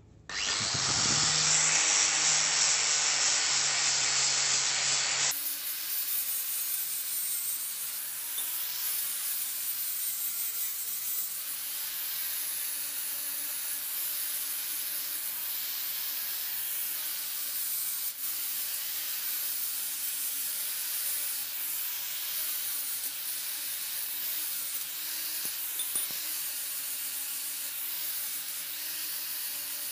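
Steady scraping hiss of sanding in a workshop, changing abruptly about five seconds in to a brighter, steady hiss, with a couple of faint clicks later on.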